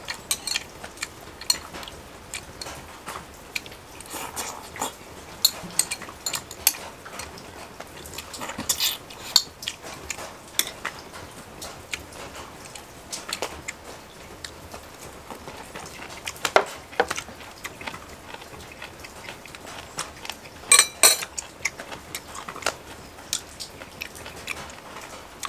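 Metal chopsticks clicking against a ceramic bowl and plate, along with the chewing of braised monkfish and bean sprouts. The clicks are sharp and scattered, a few clusters loudest around 9 and 21 seconds in.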